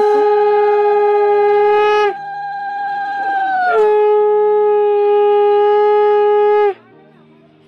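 Conch shell (shankha) blown ceremonially in a long, loud, steady blast. About two seconds in, the note breaks to a thinner, quieter upper tone. It drops back to the full note near four seconds and cuts off abruptly near seven seconds.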